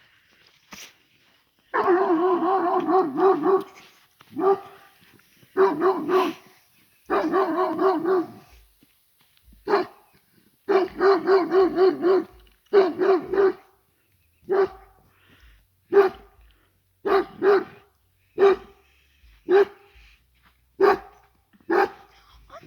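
Dog barking, in rapid runs of barks in the first half, then single barks about once a second.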